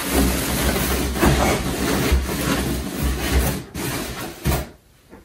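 Large plastic anti-static bag rustling and crinkling as it is stuffed into a cardboard box, rubbing against the styrofoam packing insert, with low bumps of handling. The noise stops shortly before the end.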